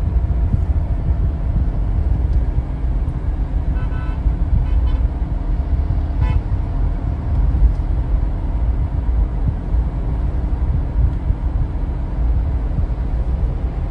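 Mahindra Bolero Neo driving on the road, heard from inside the cabin: a steady low rumble of engine and road noise, with a short horn toot about four seconds in.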